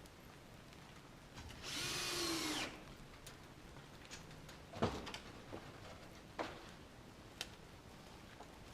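A power drill runs for about a second, its pitch bending down as it stops, followed by three sharp knocks spaced a second or two apart.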